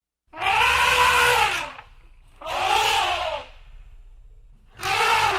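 An elephant trumpeting three times, each call lasting about a second and rising then falling in pitch, with short gaps between; the third starts near the end.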